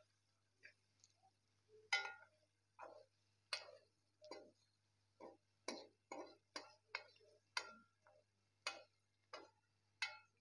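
Metal spoon scraping and knocking against an aluminium cooking pot while stirring an onion-and-tomato masala: quiet, irregular clinks, about one or two a second.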